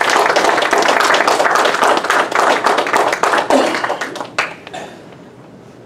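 Small audience applauding, the claps thinning out and dying away about four and a half seconds in.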